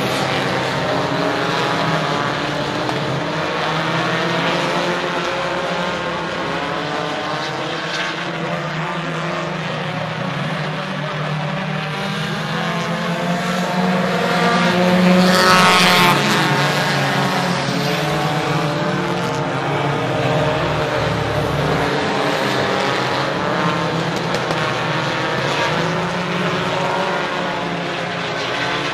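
A field of dirt-track race cars running laps, several engines revving and easing off together as they race around the oval. About halfway through, the engines swell to their loudest and drop in pitch as cars pass close by the grandstand, then ease back.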